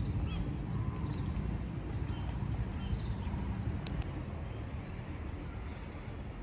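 Outdoor wind rumbling on the microphone, with a few faint high chirps in the first half.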